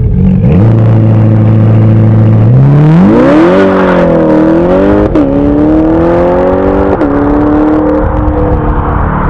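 Chevrolet C8 Corvette's 6.2-litre V8 through a 2M Fabrication cat-back exhaust, idling steadily, then accelerating hard from a standstill as it pulls away. The engine note climbs, then drops suddenly twice with a short crack as the gearbox upshifts, about five and seven seconds in.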